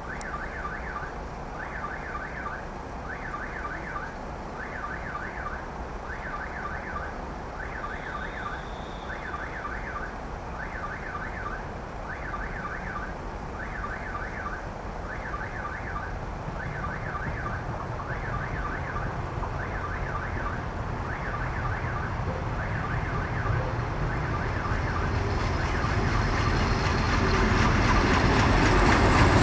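A repeating electronic signal sounds about once a second, over a low rumble that grows steadily louder from about halfway: a DR1A diesel multiple unit approaching, loudest near the end.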